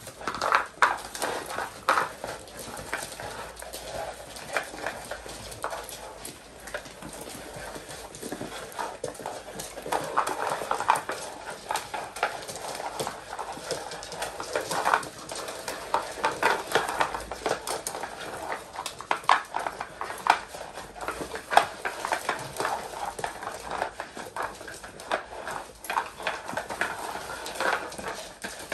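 A litter of young Labrador puppies eating soaked dog food from plastic and metal bowls on a hard laminate floor: wet lapping and chewing, with many irregular short clicks and knocks from bowls and paws on the floor as they jostle.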